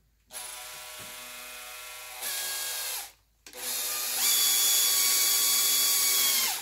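Handheld power screwdriver driving a ski binding screw into a stripped screw hole fitted with a drywall anchor. The motor whines in two runs, each stepping up in level partway through. The second run is longer and louder and stops suddenly.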